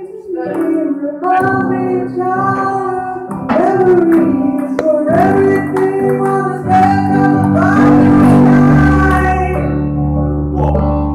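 Music: a song with a singer holding long notes over instrumental backing and steady low notes.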